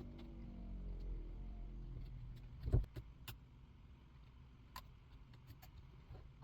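Hand-tool and part handling on a chainsaw at the bench while its throttle cable is worked free: one sharp knock about three seconds in and a few light clicks, over a low steady hum.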